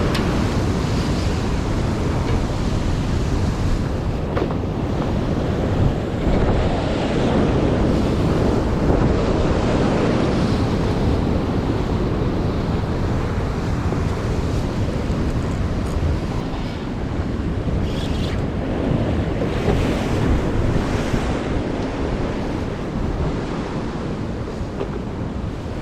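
Waves breaking and washing on the shore, with strong wind blowing over the microphone.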